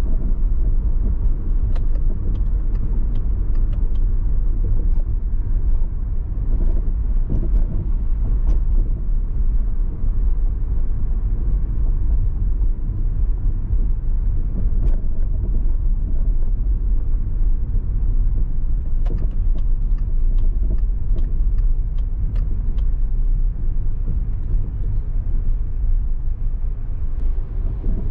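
A car driving on city streets: a steady low rumble of engine and road noise. Twice a run of light, evenly spaced ticks, about three a second, lasts a few seconds.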